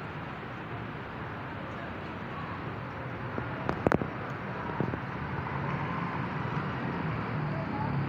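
Steady city street traffic noise from cars and motorcycles, with a quick cluster of sharp clacks about halfway through, the loudest sound here, and a lighter knock a second later.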